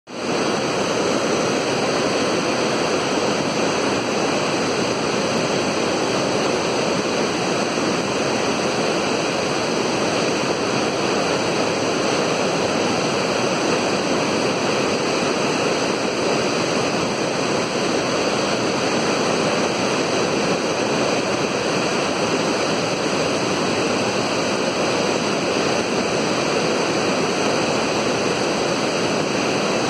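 Unchalli Falls on the Aghanashini River in full flow: the steady, unbroken rush of a large volume of water falling down a tall rock face.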